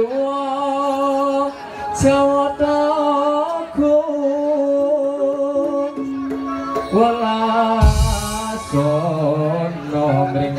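Music for a topeng ireng dance with singing: a voice sings long, held notes over the accompaniment, with a sudden loud hit about eight seconds in.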